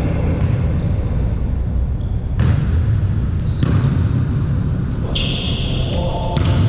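A volleyball being struck a few times, with sharp thuds about a second in from the middle and one near the end, over a loud, boomy din echoing in a sports hall.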